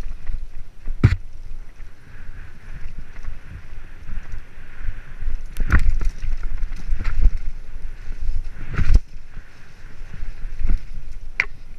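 Mountain bike rattling and clattering down a rough dirt trail, with several sharp knocks as it hits roots and bumps. Wind buffets the camera microphone, giving a steady low rumble.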